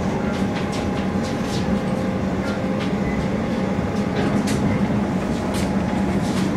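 Cabin noise of a moving suburban electric train: a steady rumble with a low hum and a faint steady whine, with scattered light clicks and rattles from the carriage.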